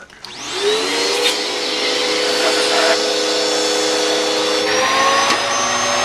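Simplicity heavy-duty upright vacuum cleaner with a motor-bypass motor, switched on and spinning up within about a second to a steady whine over rushing air. Its tone shifts about three-quarters of the way in.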